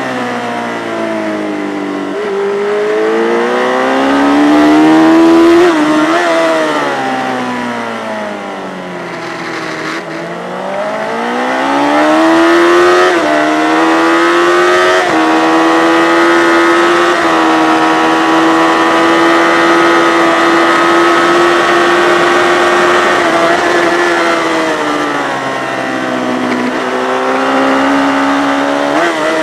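Yamaha FZ600 inline-four racing motorcycle at race pace: the revs climb, fall away, climb again and then hold high and steady for a long stretch before dropping and picking up once more.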